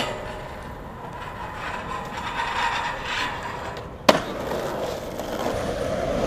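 Skateboard popping onto a metal handrail and sliding along it with a scraping, ringing sound. About four seconds in it lands with a sharp slap, and the wheels roll on.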